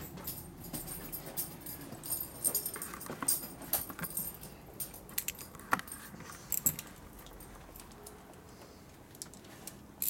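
Metal hand tools clinking and tapping against metal: an irregular run of sharp clicks, thickest in the middle and thinning out over the last few seconds.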